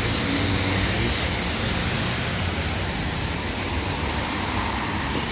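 Double-decker bus driving past close by on a wet road: its engine running with a low hum and its tyres hissing on the wet tarmac, over steady traffic noise.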